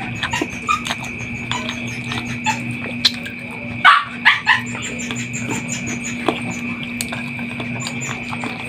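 Close-up mouth sounds of a man eating chicken and rice with his fingers: wet chewing and lip smacking in short irregular clicks, louder for a moment about four seconds in. A steady hum with a constant high tone runs underneath.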